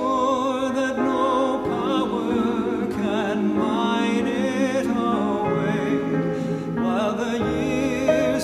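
Sacred choral anthem for SATB choir, piano and violin: a flowing piano accompaniment under held, wavering vibrato lines from the voices and the violin obligato.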